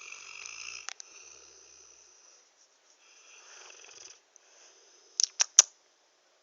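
High, whistling snoring in three long breaths, each stopping and starting again. About five seconds in come three sharp clicks in quick succession, the loudest sounds here.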